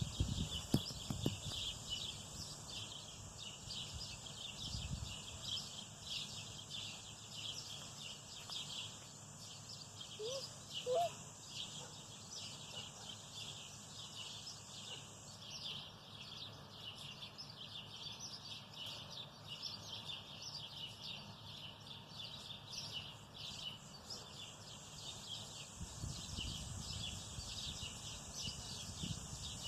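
Natural ambience of many birds chirping in a dense, continuous chorus, with a steady high-pitched buzz underneath that stops about halfway through. Two short rising calls sound about ten seconds in.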